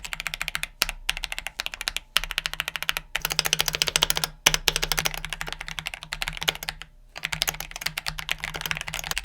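Fast typing on a mechanical keyboard fitted with Cherry MX Black linear switches: a dense run of keystrokes broken by several brief pauses.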